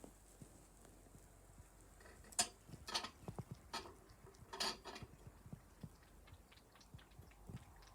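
A series of light clicks and taps, with four sharper knocks between about two and five seconds in, followed by a run of small faint ticks.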